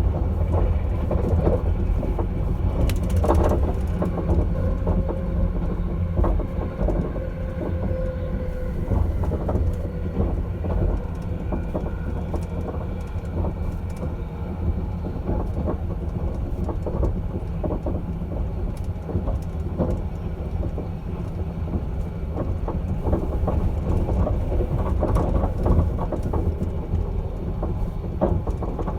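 Caledonian Sleeper train on the move: a steady heavy low rumble with frequent short rattles and knocks.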